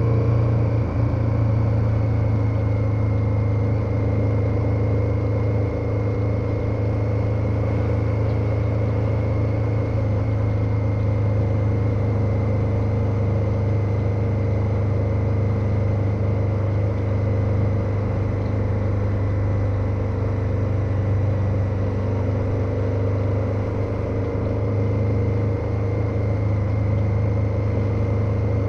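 KTM 1290 Super Adventure's V-twin engine running steadily at constant revs while the motorcycle cruises, with no gear changes or big throttle changes.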